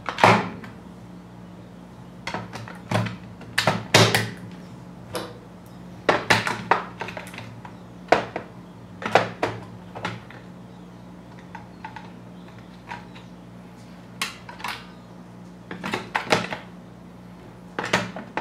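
D-cell batteries being pressed into the hard plastic battery compartment of a Hot Wheels motorized track base: about twenty irregular sharp clacks and clicks, over a low steady hum.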